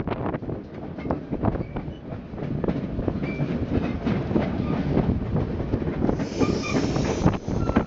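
White Pass railway train running on the track: wheels clattering over the rails, with a few short high wheel squeals in the second half.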